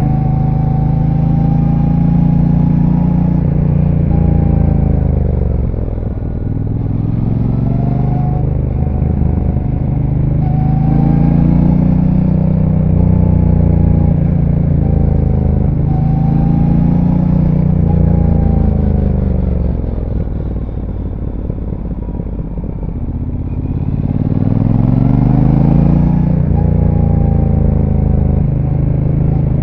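Brixton Cromwell 1200's parallel-twin engine with its stock exhaust, heard on board while riding. The revs climb and drop repeatedly through the gears, ease off for a few seconds about two-thirds of the way in, then pick up again.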